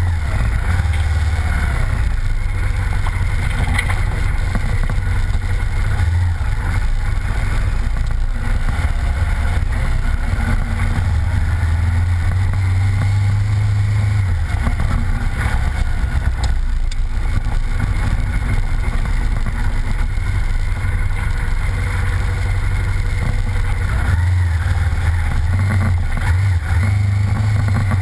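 Engine of an off-road vehicle running steadily under way, its low drone swelling and easing as it rides over rough wet ground, with wind and rumble noise on the low-mounted camera.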